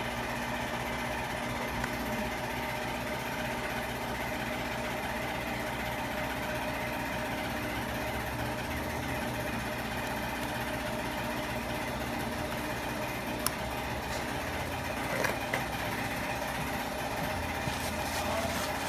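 A steady mechanical hum running at an even level, with one sharp click about thirteen seconds in and a few faint ticks shortly after.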